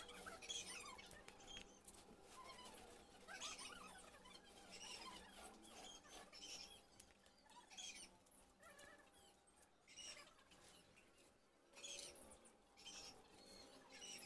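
Near silence with faint, scattered short bird chirps.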